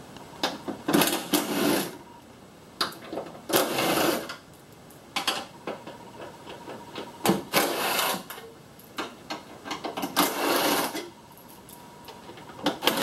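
Cordless power driver running in short bursts of about a second each, five times, backing bolts out, with small clicks and clanks of tool and bolts between the runs. It is loud.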